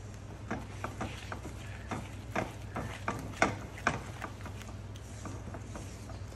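Silicone spatula stirring and scraping a thick paste of ground cashews and sugar syrup in a nonstick pan, giving irregular soft taps and scrapes against the pan. A steady low hum runs underneath.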